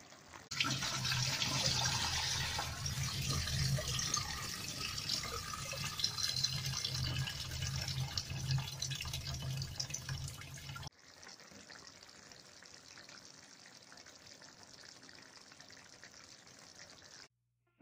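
Water sound, an even hiss of running or bubbling liquid over a steady low hum, cutting off suddenly about eleven seconds in, followed by near silence.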